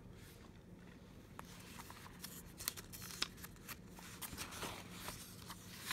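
Paper rustling and crackling as the pages of a paper instruction manual are handled and turned: faint, scattered crackles that grow busier after about a second.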